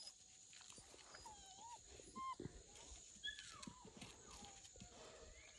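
Faint dog whining: short whimpers that rise and fall in pitch, several scattered through a few seconds.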